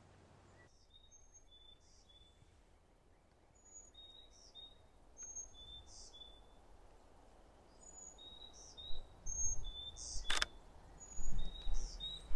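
Small birds calling with short, high chirps repeated again and again over a faint outdoor hush. A single sharp click comes about ten seconds in, and a low rumble rises in the last few seconds.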